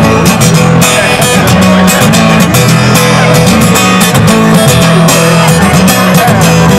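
Acoustic-electric guitar strummed in a steady rhythm through a PA, an instrumental break with no singing.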